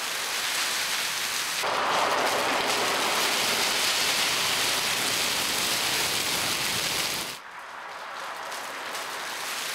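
Turkey-fryer oil fire: hot cooking oil boiling over onto the lit gas burner after a frozen turkey is lowered in, burning with a steady hissing, crackling noise. It grows louder about two seconds in, then drops suddenly about seven seconds in to a quieter hiss that builds again.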